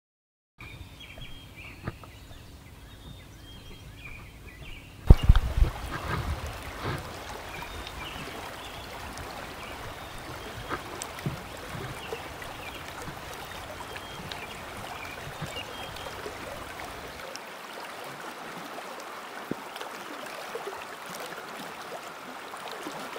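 Creek water rushing steadily over riffles. A few faint chirps come early on, and a burst of loud low thumps comes about five seconds in.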